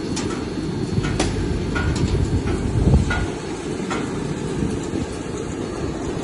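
Machinery of a drying and screening plant for building chemicals running with a steady low rumble, with irregular clicks and knocks over it and a brief louder surge about three seconds in.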